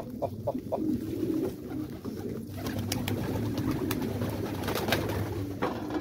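A flock of domestic pigeons cooing steadily while they feed on scattered grain, with scattered sharp ticks from pecking.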